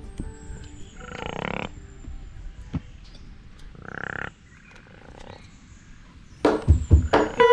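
An animal gives two short rasping, rapidly pulsed calls about three seconds apart, then a few loud sharp knocks come near the end.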